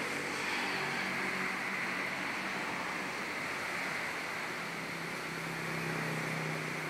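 Strong wind blowing with a steady rushing noise, with a faint low hum underneath that grows a little near the end.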